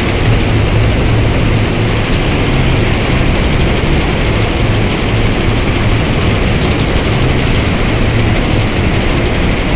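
MegaWhirl spinning flat ride running steadily at about half speed: a constant loud rush of noise over a low, even hum.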